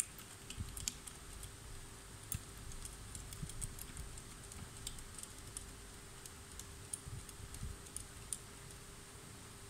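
Faint, irregular small clicks and taps of a screw and washer being fitted by hand into the metal bracket of a child-seat footrest, over a faint steady hum.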